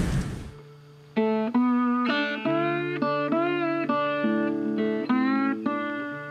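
A short guitar tune of plucked notes, several of them bent or slid in pitch, ringing on and fading out at the end. In the first half-second it is preceded by the tail of a rainstorm's wind and rain noise, which cuts off.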